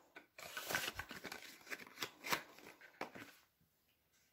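Hands handling cosmetics packaging: a run of light rustles and clicks as a cardboard box and a plastic tube are put down on the table, stopping about three and a half seconds in.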